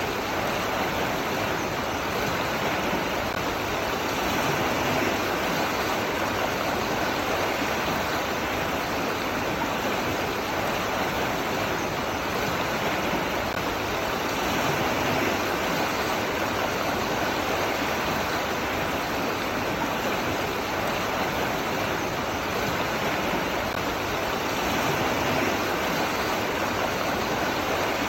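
Steady, continuous rush of running water, as from a stream or small waterfall, unchanging throughout.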